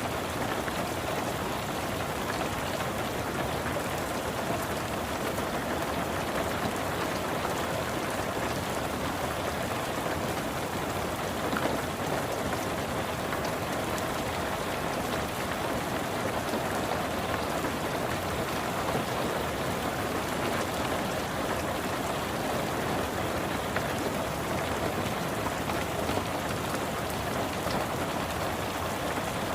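Steady rain falling on a car, heard from inside the cabin, with the odd louder drop tap standing out now and then.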